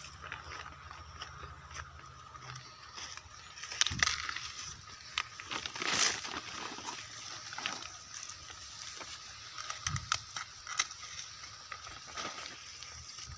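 Rustling of dry corn stalks and leaves and a woven plastic feed sack as a person moves through a corn field, with sharper rustles about four, six and ten seconds in, over a steady high-pitched drone.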